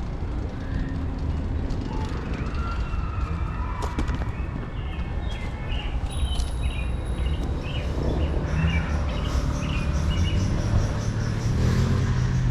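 Steady low rumble of city street traffic, growing a little louder near the end, with scattered short high squeaks and a run of quick chirps in the second half.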